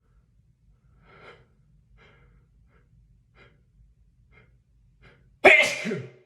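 A man sneezing once, loud and sudden, about five and a half seconds in, with a falling vocal tail at the end. Before it come several faint, short catching breaths about a second apart as the sneeze builds.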